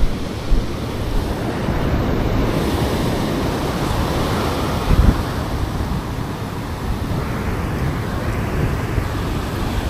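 Ocean surf breaking and washing up the beach, with wind buffeting the microphone. A short thump about halfway through.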